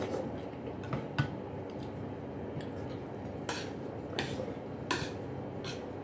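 Eating at the table: a metal spoon clicks against tableware twice about a second in, then a few short noisy mouth sounds of eating a soupy noodle dish, over a steady background hum.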